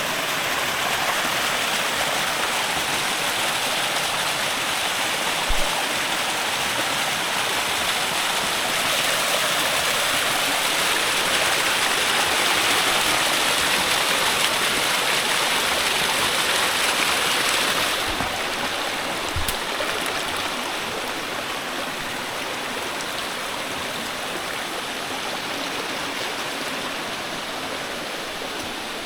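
Steady rush of flowing water from a mountain stream, growing a little louder toward the middle and easing off after about eighteen seconds. A couple of brief low thumps cut through it.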